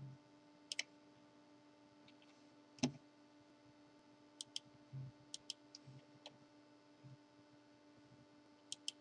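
Faint, scattered sharp clicks, one every second or two with a louder one about three seconds in, over a low steady hum.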